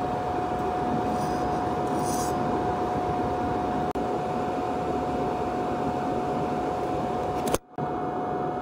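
Steady machine noise in a welding shop: a constant high whine over an even rushing hum, with no arc crackle. It dips briefly about four seconds in and cuts out for a moment near the end.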